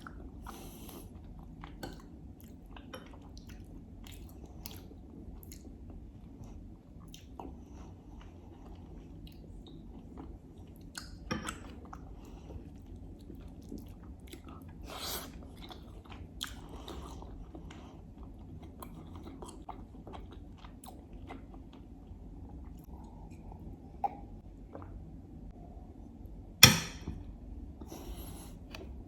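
Close-miked chewing of stewed herbs, rice and lamb: soft wet mouth sounds and small clicks throughout. A few louder sharp sounds come through, the sharpest near the end.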